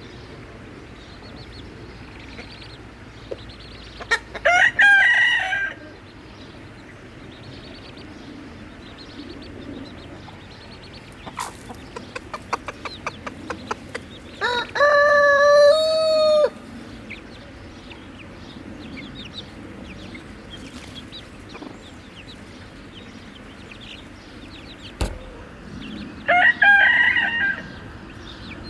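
Chickens, with a rooster crowing three times, each crow about two seconds long and roughly ten seconds apart. Hens cluck softly between the crows.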